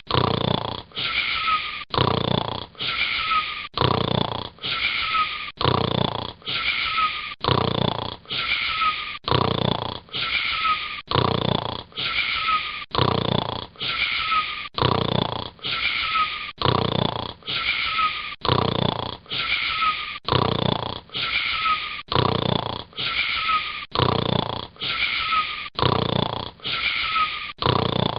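A boy snoring in a fast, even rhythm of about one snore a second, every snore alike. Each has a high whistling note that slides down.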